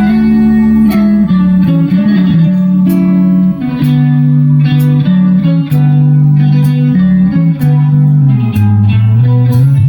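Loud music: a plucked-string melody over deep sustained bass notes that shift in pitch, with a sharp tick roughly every half second.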